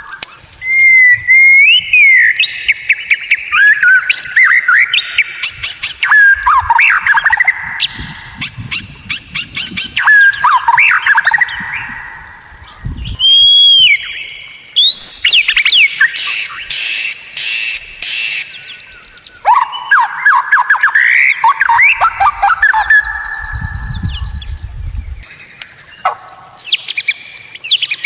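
White-rumped shama singing a loud, varied song of clear whistles, gliding notes and fast trills and clicking runs, in phrases separated by short pauses.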